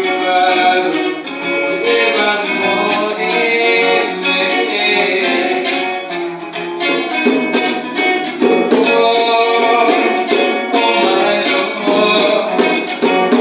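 Live gospel worship music: an electric guitar playing a picked melody over hand-drum beats, with a man singing into a microphone.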